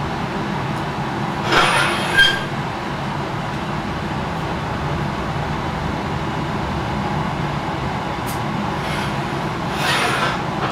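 Gas burner of a glassblowing furnace running with a steady rumbling roar, with two short hissing bursts, one about a second and a half in and one near the end.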